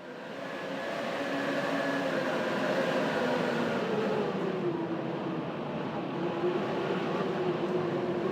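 Blizzard wind fading in over the first second or so, then blowing steadily with faint howling tones that waver slowly in pitch.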